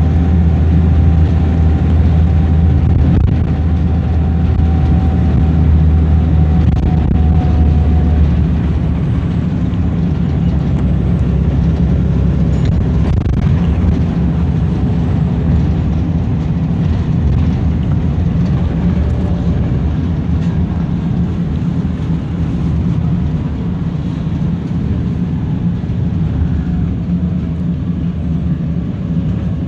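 Wright Eclipse single-deck bus heard from inside the saloon while driving: a deep engine drone that eases off about eight seconds in, then steady engine and road rumble as the bus carries on.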